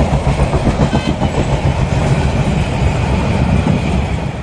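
Passenger express train passing at speed, a loud rumble with its wheels clattering over the rail joints; the noise drops off sharply at the very end.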